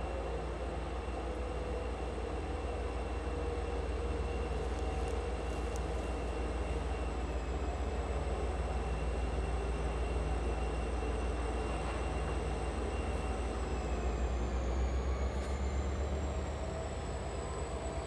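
Norfolk Southern diesel-electric locomotive running as it approaches slowly: a steady low engine rumble with a faint high whine, a little louder about three-quarters of the way through.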